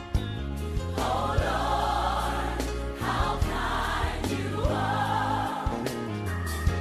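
Gospel music: a choir singing long phrases over a steady bass line and a regular beat.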